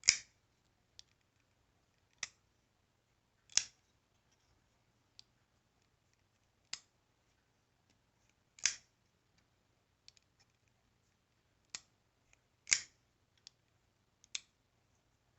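CRKT Pilar III frame-lock folding knife being worked open and shut: a string of short, sharp metallic clicks at uneven intervals, a few much louder than the rest.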